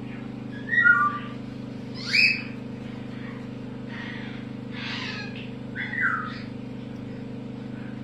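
Parrot chick giving short chirping calls every second or so while being syringe-fed formula, some calls gliding up or down in pitch, over a steady low hum.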